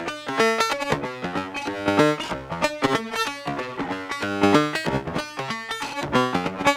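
Eurorack modular synthesizer patch playing a fast sequence of short pitched notes, several a second. Its tone is shaped by a steady modulation voltage sent from one of the mixer's outputs into an effect.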